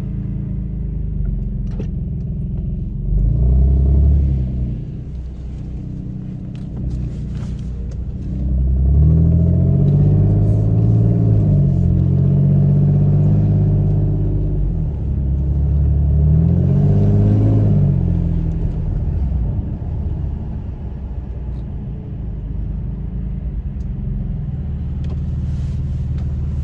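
VQ35HR V6 engine heard through a freshly fitted Manzo stainless catback exhaust, idling with a short rev about three seconds in. A longer rev rises from about eight seconds in and is held for several seconds before dropping back, and another quick rev rises and falls around seventeen seconds.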